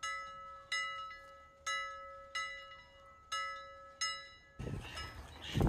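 Intro music: six bell-like struck notes, one about every 0.7 s, each ringing out and fading. About 4.6 s in the notes stop and give way to outdoor noise.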